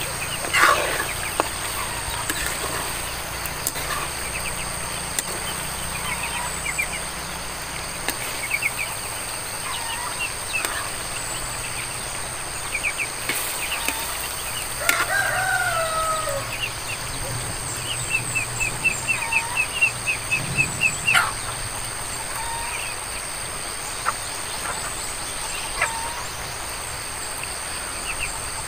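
Chickens clucking, with a rooster crowing once about halfway through and quick runs of clucks later on, over a steady high-pitched whine.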